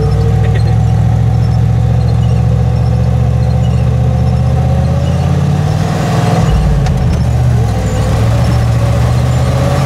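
Turbocharged four-wheel-drive Chevrolet Suburban engine running steadily under load while driving through snow in four-wheel high. A thin whine sits over the low engine drone, and the note shifts briefly about two-thirds of the way through.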